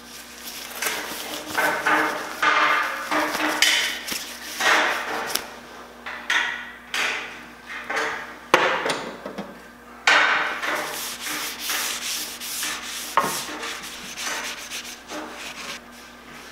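Rag rubbing oil finish along a wooden board in repeated uneven strokes, with a sharp click about halfway through.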